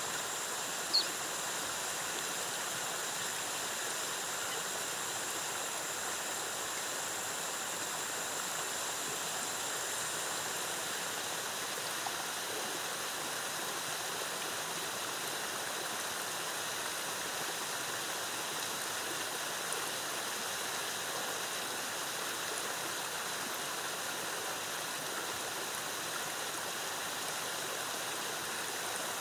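Waterfall's cascading water rushing steadily, with one brief sharp high chirp about a second in.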